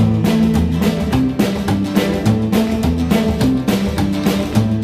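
Rockabilly band playing an instrumental passage between vocal lines: a bass line stepping from note to note under a steady drum beat.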